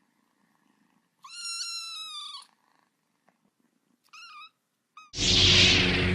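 A cat meowing: one long, high meow about a second in, then two short meows, over a faint purr. A sudden loud burst of noise cuts in near the end.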